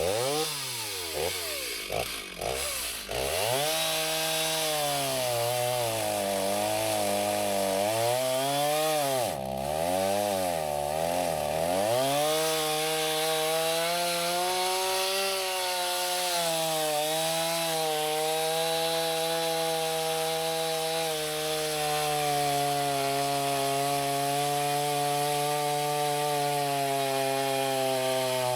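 Chainsaw running: its pitch rises and falls repeatedly for the first dozen seconds, then holds steady with slow sags as it cuts through wood.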